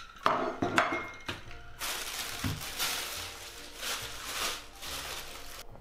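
A few sharp clinks of dishes, then a plastic bag crinkling and rustling as it is handled.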